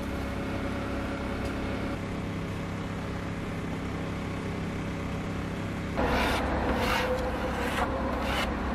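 Steady low engine hum of road traffic. About six seconds in it turns louder, with a few short hissing rushes.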